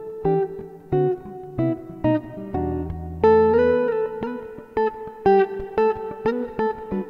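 Instrumental guitar music: a quick run of plucked notes in a repeating pattern, with a low bass note held for about a second, starting about two and a half seconds in.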